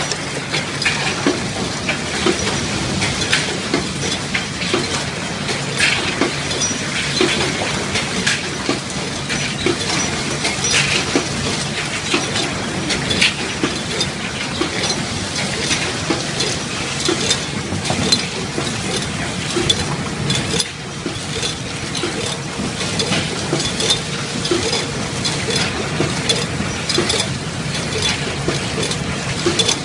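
Packaging machinery on a lemon-bagging line running, a steady mechanical clatter with frequent short clicks and clinks.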